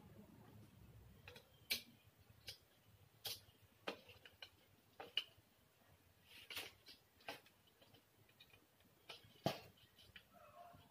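Faint, scattered clicks and taps of hand assembly on a metal table frame: screws, plastic fittings and a screwdriver knocking against the metal tubing, about a dozen irregular strokes with the sharpest knock about nine and a half seconds in.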